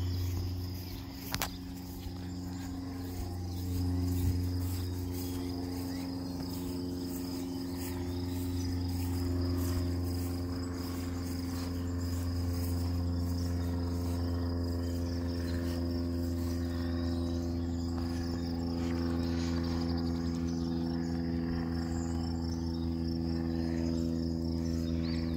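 A steady low hum with even overtones, with a constant high insect chirring, typical of crickets, running over it. A single sharp click comes about a second and a half in.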